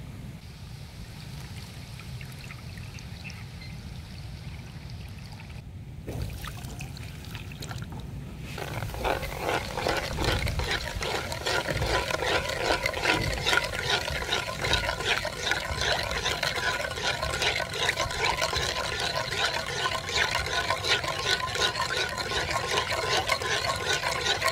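Metal spoon stirring a watery mix of sugar and starch in a metal pan: a quiet start, then about a third of the way in a dense run of rapid scraping clicks and sloshing that keeps on.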